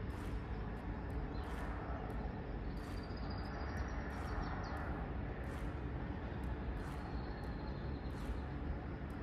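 Steady outdoor background noise with a low rumble, and faint high thin sounds about a third of the way in and again near the end.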